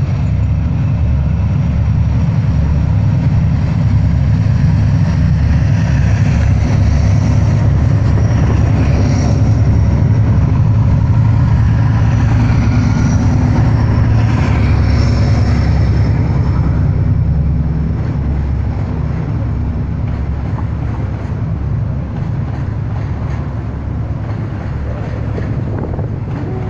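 Freight train hauled by a diesel locomotive passing close: a loud, steady low engine rumble with faint high squeals. It eases off after about seventeen seconds as the wagons roll by.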